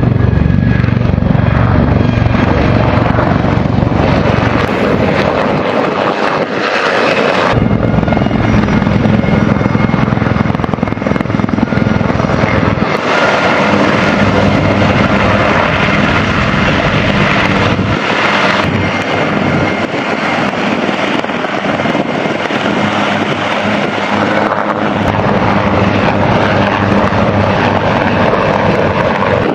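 Bell AH-1Z Viper attack helicopters flying low past, with a steady, loud rotor beat. The sound changes abruptly a few times.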